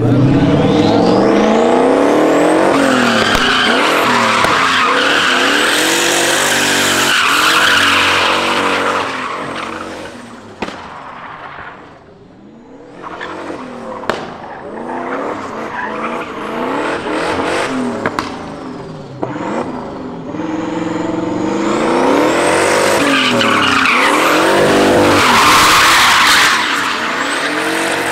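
Drift car engine revving up and down hard while the tyres squeal through slides. It is loud for the first several seconds, eases off around ten to thirteen seconds in, then builds to a second loud slide near the end.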